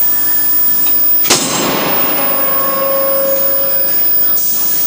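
Blacksmith's forge running with a steady rushing noise, broken about a second in by one sharp metal clang that leaves a ringing tone for a couple of seconds.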